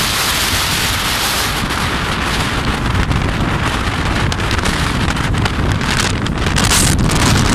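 Heavy wind buffeting the microphone of a phone carried on a moving motorcycle, with the motorcycle's running engine mixed in underneath. The noise is loud and steady.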